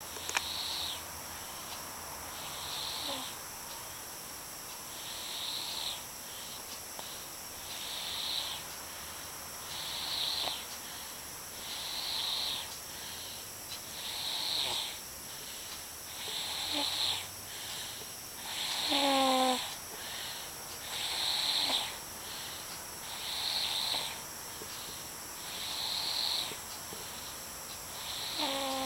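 A sleeping baby snoring softly, with a raspy breath about every two seconds in a steady rhythm. Now and then a snore carries a brief squeaky whistle.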